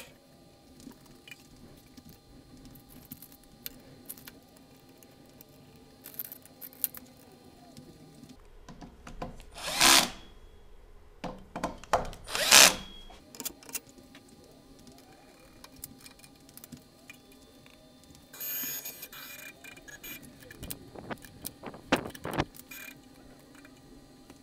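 Cordless drill driving screws into plywood in short bursts of about half a second, the loudest two about ten and twelve and a half seconds in, with a further burst near nineteen seconds. Clicks and handling knocks fall between the bursts.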